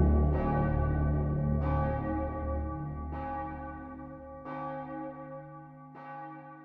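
A church bell tolling five times at an even pace, about one stroke every second and a half, each stroke ringing on and dying away, over a low sustained hum that drops out about two thirds of the way through; the whole sound fades steadily.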